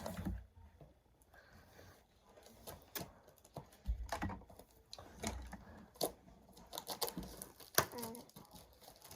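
Scattered taps, clicks and light rustles from a football card box and its packs being handled.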